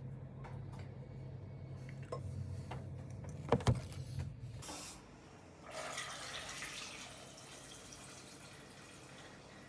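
A kitchen tap runs water into a metal cooking pot, filling it to boil eggs, starting about six seconds in. Before that a low hum runs and stops, and the pot gives a sharp knock about three and a half seconds in.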